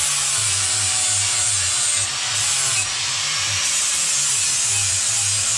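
Hand-held angle grinder grinding metal under load, throwing sparks: a loud, steady grinding hiss with a motor whine.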